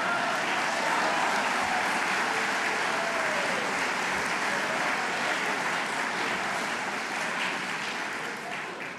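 Audience applause in a lecture hall, steady and then dying away near the end.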